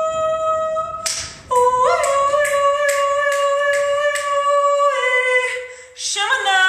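Solo unaccompanied voice singing wordless 'light language' in long held notes, ringing in a reverberant unfinished studio; one note breaks off about a second in, a long note is held and sags in pitch at its end, and a new note begins near the end. Sharp taps sound about three times a second through the long note.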